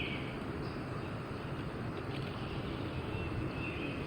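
Wind rumbling on the microphone outdoors, a steady low noise, with a few faint bird chirps.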